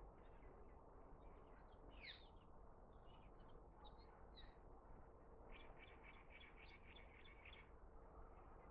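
Faint calls of small wild birds over a quiet outdoor hiss: scattered high chirps and a sweeping call, then, about five and a half seconds in, a quick run of about nine repeated notes at roughly four a second.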